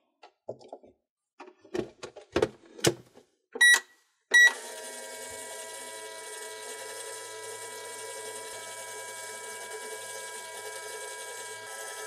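Plastic clicks and knocks from a Just Like Home toy microwave's door and buttons, then two short electronic beeps about four seconds in. The toy then starts its running sound: a steady hum with several held tones.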